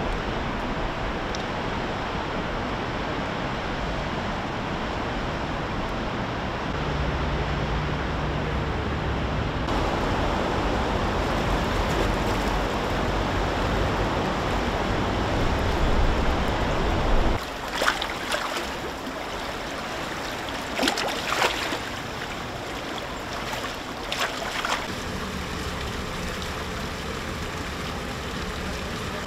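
Rushing water of a river in flood, a steady noise that changes abruptly twice as the shots change. In the second half there are a few sharp knocks.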